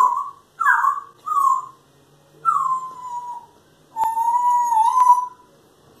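Pet parrot giving a run of whistled, whine-like calls: three shorter calls that slide down in pitch, then one long wavering whistle lasting about a second and a half. Two sharp clicks come during the long whistle.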